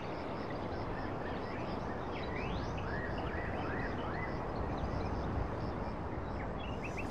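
Steady outdoor background noise with birds chirping over it: a run of short rising-and-falling calls a few seconds in, and a faint high ticking repeated evenly throughout.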